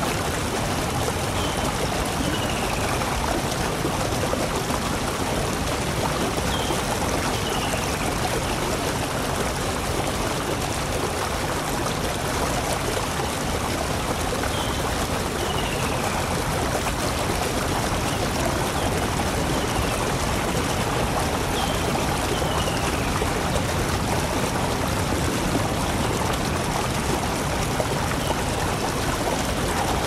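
Waterfall: a steady, even rush of falling water with no breaks.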